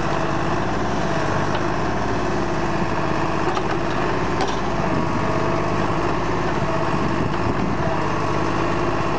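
Deutz-Fahr tractor's diesel engine running steadily under load as it powers a rear-mounted backhoe digging soil.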